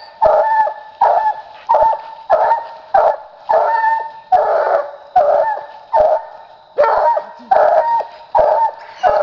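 Young hound pup barking over and over at the foot of a tree, a steady run of about thirteen loud barks, one roughly every 0.7 seconds: barking treed.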